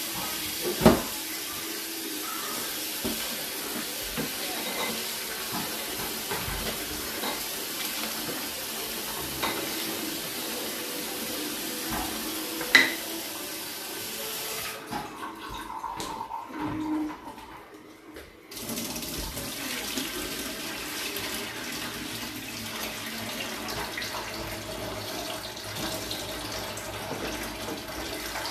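Tap water running into a bowl of black-eyed beans as they are washed, with a sharp knock about a second in and another about halfway. The water stops suddenly for about four seconds, then runs again.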